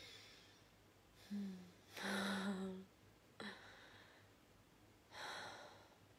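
A woman breathing audibly, with a short hum and then a longer voiced sigh, and another breath about five seconds in. A sharp click sounds about halfway through.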